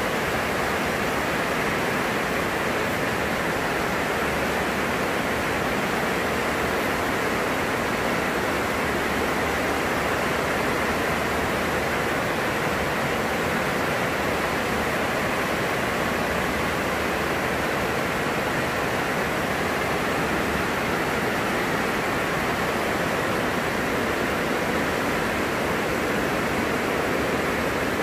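Very heavy rain falling on a greenhouse roof, a steady, unbroken hiss.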